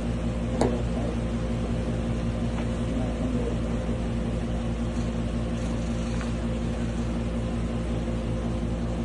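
Steady machine hum made of several fixed low tones, with one short click about half a second in.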